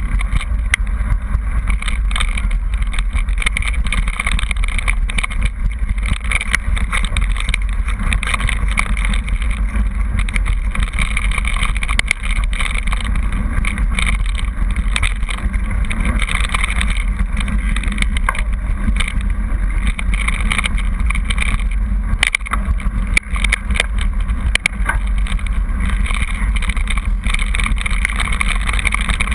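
Mountain bike rolling fast down a rough gravel track, heard from a camera riding along: a steady deep rumble of tyres and wind buffeting on the microphone, with constant small clicks and rattles from stones and the bike.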